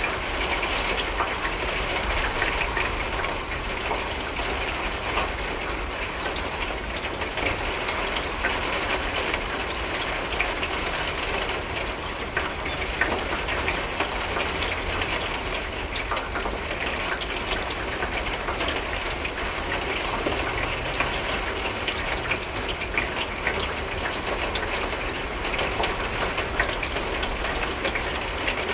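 Steady rain falling on a window, an even patter of many small drops ticking on the glass over a low rumble.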